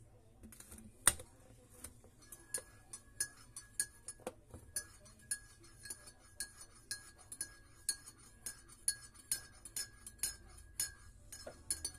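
A spoon repeatedly clinking against a ceramic mug, two to three times a second, each clink ringing at the same pitch, as when a drink is stirred. There is a single sharper knock about a second in.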